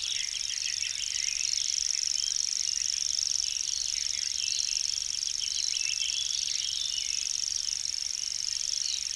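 Common grasshopper warbler singing its whirring reel: one high, unbroken trill held steadily for the whole stretch.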